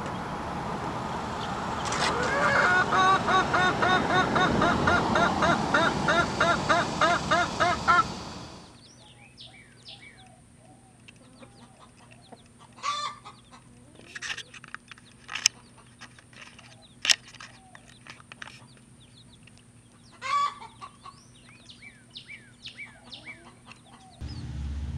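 A hen clucking in a fast, even run of calls, several a second. Then the background drops away suddenly, leaving baby chicks peeping in short high falling calls, a few louder hen clucks and scattered sharp clicks.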